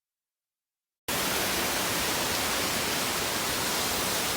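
Dead silence for about a second, then the steady rushing of a waterfall and stream, an even hiss with no change in level.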